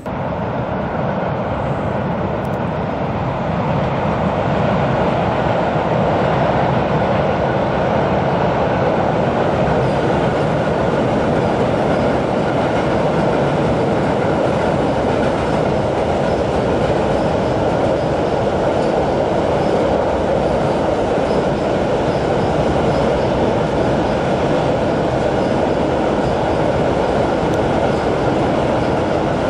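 Freight train of covered hopper wagons rolling across a steel truss railway bridge: a loud, steady rolling noise that builds over the first few seconds and then holds level as the wagons pass.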